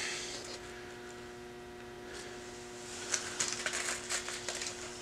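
Steady low electrical hum. About three seconds in, a second or so of crinkly rustling and light clicks as things are handled on the plywood workbench.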